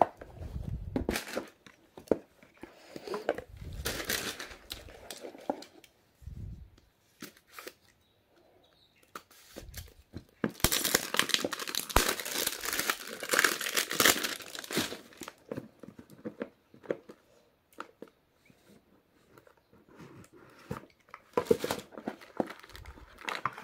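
Plastic packaging crinkling and rustling while smartphones are lifted out of and put back into cardboard boxes, with light clicks and dull thumps of the boxes and phones being handled. The longest, loudest crinkling comes about halfway through.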